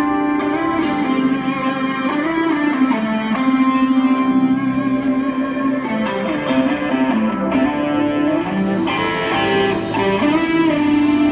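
Live band playing: electric guitar over keyboard and a drum kit, with a lead line of long held notes that bend up and down.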